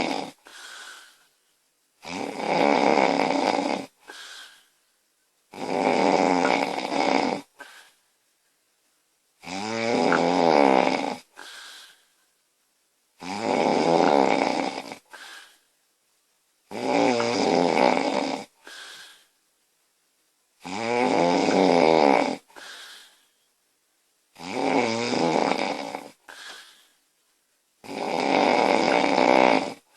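A woman snoring loudly in a steady rhythm, about eight long snores, one every three and a half to four seconds. Each is followed by a short, quieter breath sound.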